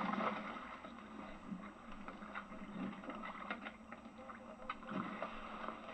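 Oyster tongs being worked from a small skiff: scattered clicks and knocks of the tongs and shells over a steady hum and water noise.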